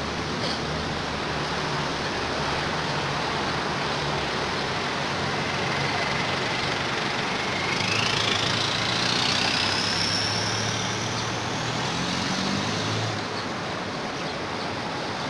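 Steady road traffic noise, with a vehicle engine passing louder about eight seconds in, its whine rising in pitch before it fades.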